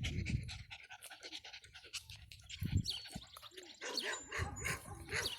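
Terrier puppies panting and scuffling about, with rustling, a few low thumps and some brief faint squeaks.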